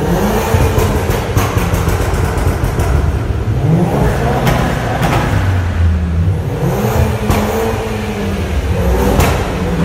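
Car engine revved several times in an echoing parking garage, its pitch sweeping up and falling back, with sharp cracks in between.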